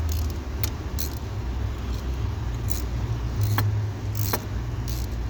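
Sparse, sharp metallic clicks from a 14 mm wrench turning the center bolt of a steering-column bearing puller to draw the old bearing off, over a steady low hum.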